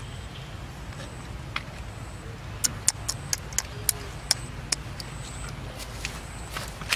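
A quick run of about eight sharp clicks or crackles in two seconds, starting a little over two seconds in, with one more near the end, over a low steady rumble.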